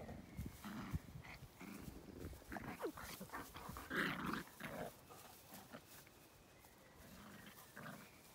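Puppies play-fighting, with scattered small growls and yips. The loudest burst comes about four seconds in.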